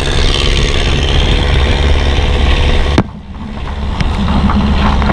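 A vehicle's engine running while under way, with road and wind noise on the microphone. About three seconds in the sound drops sharply and then builds back up.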